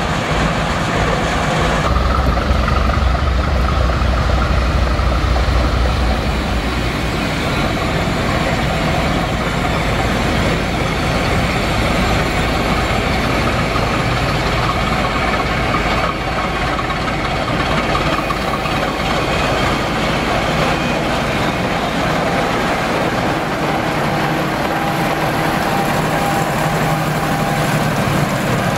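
Class V 65 diesel locomotive's engine running steadily, with a deep low rumble that swells from about two seconds in and eases off a few seconds later.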